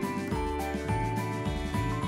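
Background music: a melody of held notes over a moving bass line and a steady beat.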